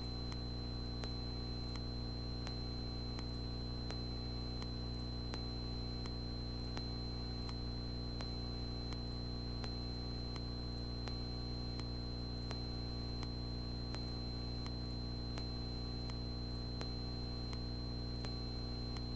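Steady cabin drone of a single-engine Cessna Skyhawk in level flight, heard through the aircraft intercom as a low, even hum with a thin high whine and faint regular ticking.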